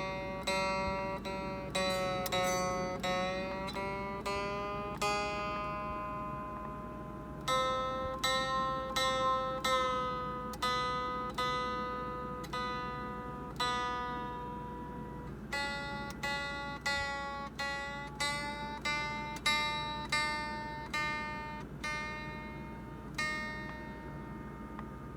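Music: a slow melody of single plucked-string notes, guitar-like, each ringing out and fading, with two short pauses in the phrase.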